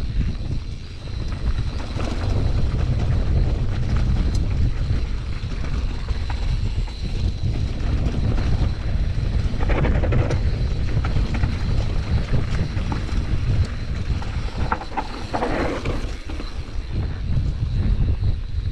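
Wind buffeting the microphone of a mountain bike ride, a steady deep rumble with scattered rattles from the bike over rough trail. There are two louder rushes, one about halfway through and one a little later.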